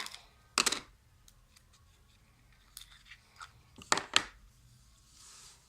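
A slime and its plastic tub being handled: short, sharp crackling bursts, one about half a second in and two close together near four seconds, with faint clicks between them.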